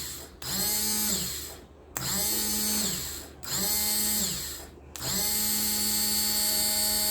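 Honda Activa 125 starter motor with new carbon brushes, run on the bench in four short bursts. Each time it spins up quickly to a steady whine and winds down, and the last run is the longest. It runs freely, a sign that the brush replacement has brought the dead motor back.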